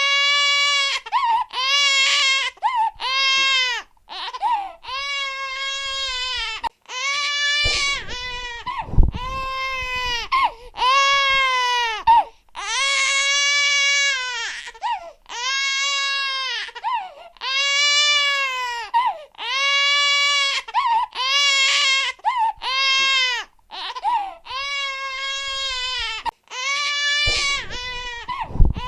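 A baby crying hard in a long run of wails, each about a second long and rising then falling in pitch, with short gasping breaths between them. Low thuds sound about a third of the way in and again near the end.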